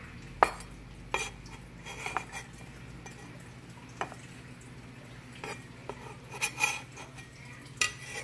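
Chef's knife and sliced vegetables knocking and tapping on a wooden cutting board, an irregular scatter of short sharp clicks and knocks over a low steady hum.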